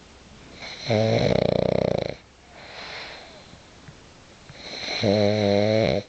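Pug snoring: two loud, buzzing snores about four seconds apart, each lasting about a second, with a softer breath between them.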